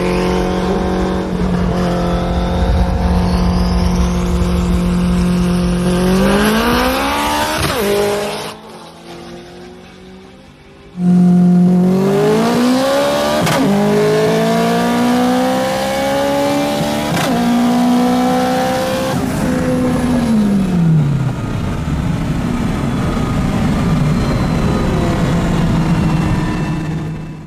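High-horsepower cars in a highway roll race, one an all-wheel-drive hatchback and the other a C6 Corvette ZR1. Engine first held at a steady pitch, then rising hard at full throttle before dropping away. After a cut, one car's engine, heard from inside the cabin, pulls up through the gears: its pitch climbs in steps with a drop at each shift. Near the end it falls as the throttle is lifted, leaving steady road and wind noise.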